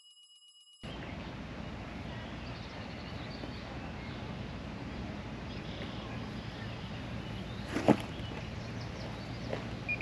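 Steady outdoor background noise, wind-like, starting abruptly after a near-silent first second. A sharp knock is the loudest sound, about eight seconds in, with a couple of softer clicks near the end.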